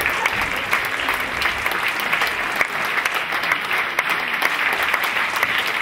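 Audience applauding steadily, a dense continuous patter of clapping.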